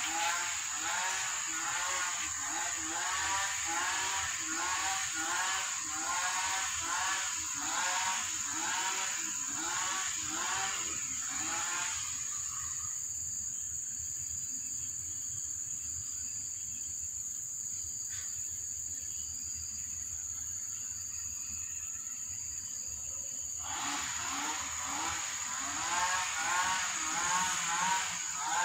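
Background music: a repeating pitched tune of about two notes a second, which drops out about twelve seconds in and comes back near the end, over a steady high-pitched whine.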